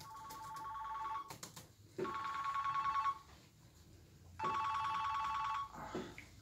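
Telephone ringing three times, each ring a trilling two-tone burst lasting about a second, with short silent gaps between them.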